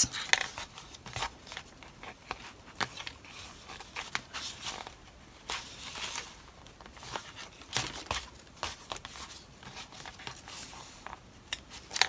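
Light rustling of paper signatures and handling of the binding thread as knots are tied, with scattered soft clicks and taps and a sharper click near the end.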